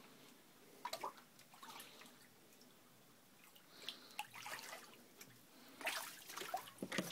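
Faint drips and small splashes of floodwater, with a louder stretch of splashing about six seconds in.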